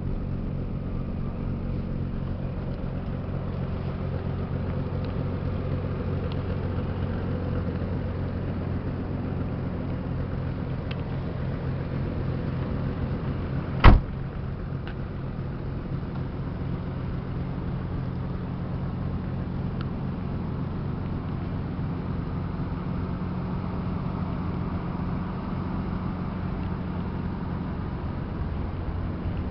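Nissan 300ZX twin-turbo's 3.0-litre V6 idling steadily. About halfway through there is one sharp slam, the car door being shut.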